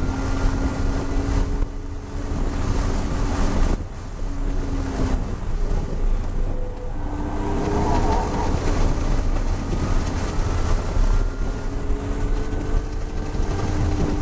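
BMW E36 M3's straight-six engine under hard acceleration, heard from inside the cabin: its pitch climbs, falls back, and climbs again several times, with a dip in loudness about four seconds in, over steady road and wind noise.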